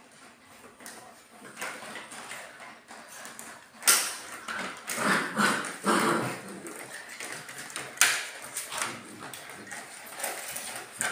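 Young puppies vocalizing as they play, tugging at a plastic hoop. The pitched sounds are densest in the middle, and there are two sharp knocks about four and eight seconds in.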